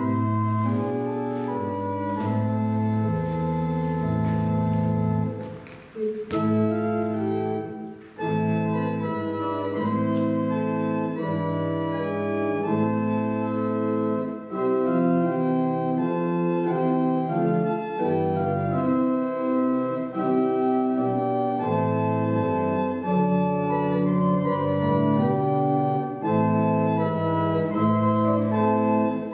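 Organ playing a slow hymn tune in sustained chords, with short breaks between phrases about 6 and 8 seconds in.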